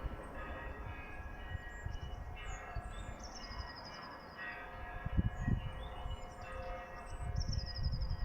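A bell struck several times, a second or two apart, each stroke ringing on with several steady tones. A songbird sings a descending trill over it a few times.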